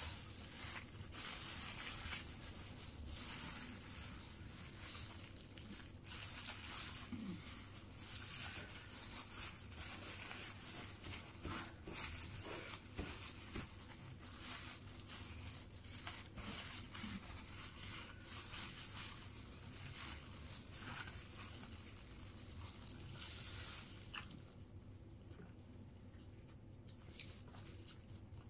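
Plastic-gloved hands picking apart fried chicken and rice on an opened paper food wrapper: irregular crinkling, rustling and tearing sounds, thinning out a few seconds before the end.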